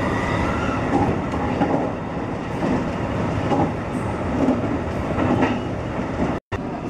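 Electric commuter train running along the track, heard from inside the car: a steady rumble of wheels on rail with irregular clicks as the wheels pass over rail joints. The sound cuts out briefly near the end.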